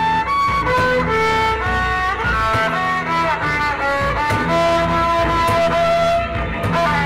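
Instrumental music: a melody of held notes, each lasting about half a second to a second, over a steady bass line.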